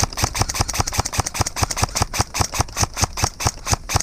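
Airsoft gun firing a rapid string of shots, about eight a second, sharp clicks with uneven loudness.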